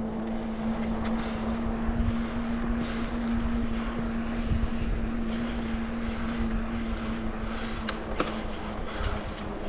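Riding along a trail: a steady hum at one pitch over rough low rumble and wind noise on the microphone, with two sharp clicks about eight seconds in.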